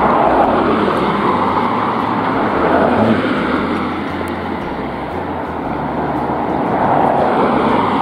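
Road traffic: cars passing close by, a rush of tyre and engine noise that swells about three seconds in and again as another car goes by near the end.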